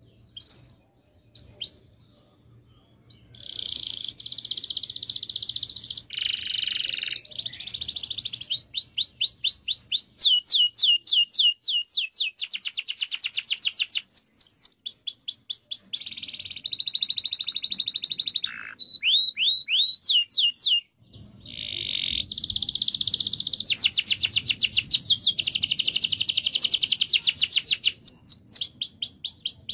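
Domestic canary singing: a few short chirps, then from about three seconds in a long song of fast rolling trills and quick runs of repeated sweeping notes, broken by short pauses.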